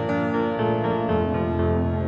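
Instrumental background music: a slow keyboard piece with sustained chords.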